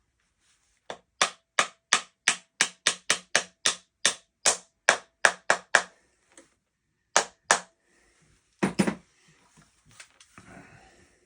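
A rapid run of sharp knocks, about three a second, then two more and one heavier knock, as parts of a bullpup 12-gauge shotgun are struck while the owner tries to force its bolt back into place.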